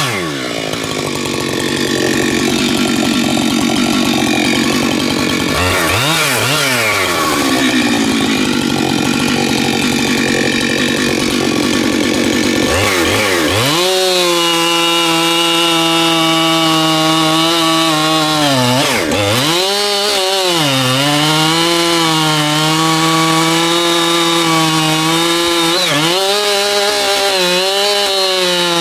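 Husqvarna 592XP two-stroke chainsaw running hard, as when cutting through wood. The engine pitch dips and recovers near the start and again around 6 seconds, climbs about 13 seconds in, then holds a steady high pitch with one brief dip in the middle of that stretch.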